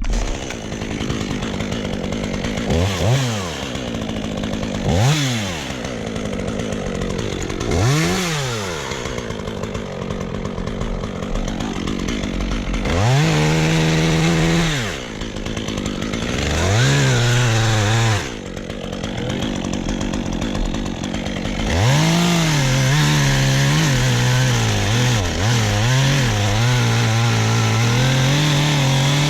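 Two-stroke chainsaw revving: a few short throttle blips, then two longer full-throttle runs. From about three-quarters of the way through it holds at high revs, its pitch wavering as it cuts wood.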